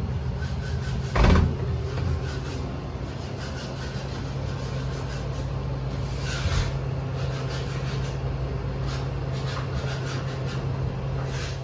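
Steady low mechanical hum, with one loud knock about a second in and a few brief, sharper noises later.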